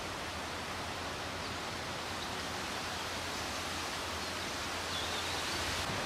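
Steady, even outdoor hiss of woodland ambience, with a few faint high bird chirps, the clearest about five seconds in.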